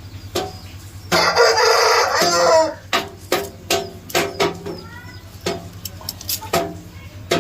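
A rooster crows once, starting about a second in and lasting about a second and a half, ending on a falling note. Sharp clicks repeat throughout over a steady low hum.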